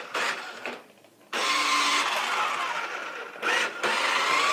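Toy RC car's small electric drive motor whirring in spurts as it is driven: two short bursts, a brief pause about a second in, then a longer run with a whine that rises and falls, a short break and another run near the end.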